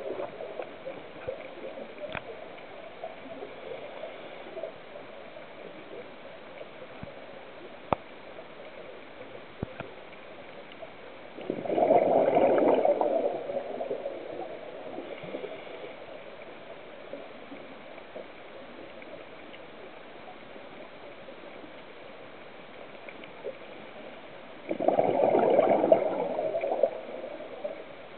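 Scuba diver's exhaled breath bubbling out of the regulator underwater, in two gurgling bursts of about two seconds each, roughly thirteen seconds apart. Between the breaths there is a faint steady hiss and a few small clicks.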